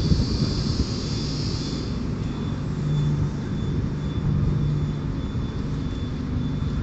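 PKP Intercity electric train rolling slowly past along the platform: a steady low rumble of wheels and traction hum, with a high squeal in roughly the first two seconds.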